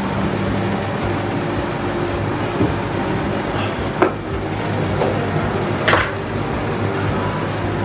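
Steady whir of a portable air cooler's fan running, with a sharp knock about four seconds in and a louder one about six seconds in as things are picked up off a bedside table.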